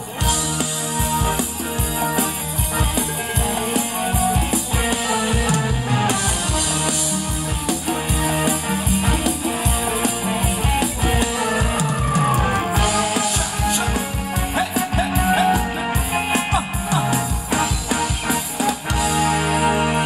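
Live band playing upbeat Thai ramwong dance music with a steady drum beat and guitar.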